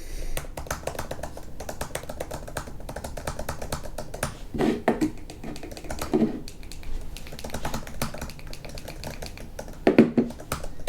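Computer keyboard typing: a fast, continuous run of key clicks, with a few heavier, deeper key strikes about five, six and ten seconds in.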